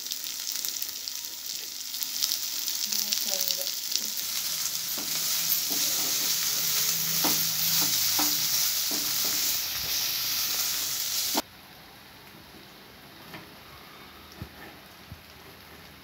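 Boneless chicken pieces frying in oil in a nonstick kadai, with a steady sizzle and the scrape and clack of a wooden spatula stirring them. The sizzle cuts off suddenly about two-thirds of the way through, leaving a low hush with a few faint ticks.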